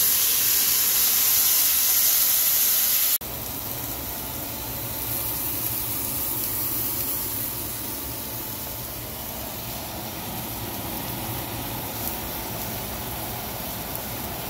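Liquid poured into a hot stainless steel pan of frying shrimp sets off a loud burst of hissing steam. About three seconds in it cuts to a quieter, steady sizzle of the shrimp frying.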